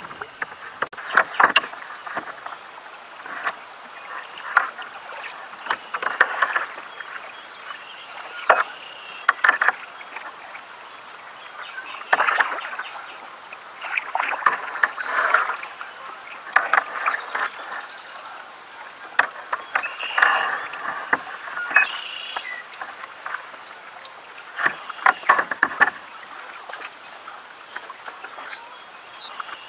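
Kayak paddle strokes splashing in the water, in irregular bursts every couple of seconds.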